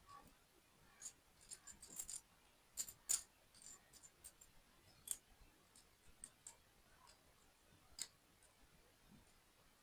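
Small plastic toy building parts clicking and tapping as they are handled and fitted together. It is a scatter of light, sharp clicks: a cluster in the first three seconds, a few more around the middle, and one near the end.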